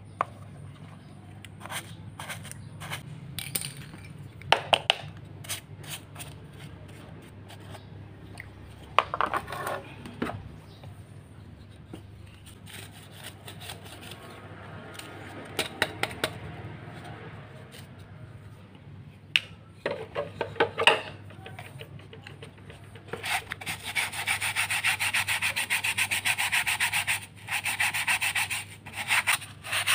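Plastic vacuum-cleaner filter parts being handled, with scattered clicks and knocks as a cylindrical pleated filter is pulled from its mesh housing. Then a paintbrush scrubs dust off the pleated filter in long scratchy strokes, starting a little past two-thirds of the way in, with a short pause near the end.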